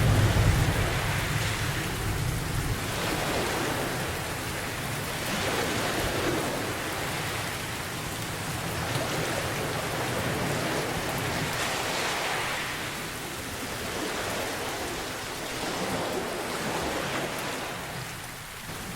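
Steady heavy rain with a low roll of thunder in the first few seconds, over ocean waves washing in swells every few seconds.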